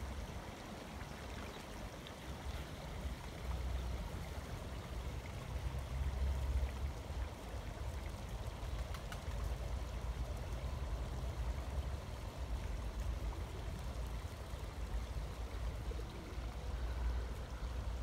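A small stream running steadily, with a low, uneven rumble underneath.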